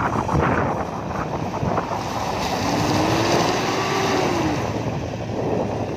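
Wind buffeting the microphone over the running engines of a tracked excavator and a four-wheel-drive pickup. About halfway through, a faint whine rises and then falls.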